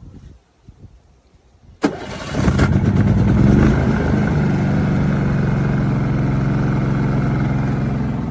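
Portable generator engine starting a little under two seconds in, revving up briefly, then settling into a steady run.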